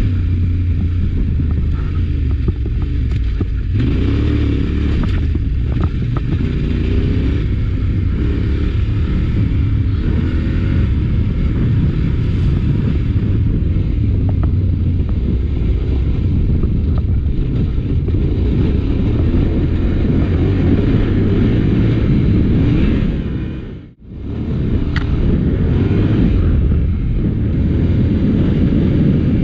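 Adventure motorcycle engine running steadily under way, with a loud low rumble. The sound cuts out briefly about 24 seconds in and then comes back.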